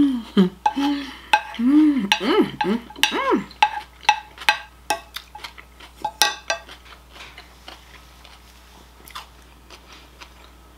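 Close-up chewing of a mouthful of salad: irregular wet clicks and crunches that thin out after about four seconds, over rising-and-falling hums of enjoyment in the first three seconds. A sharper click of cutlery on the plate about six seconds in.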